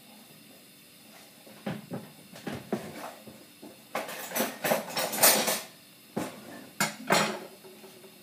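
Kitchen pots, pans and utensils being handled and set down: an irregular run of clattering knocks and clinks, loudest about halfway through.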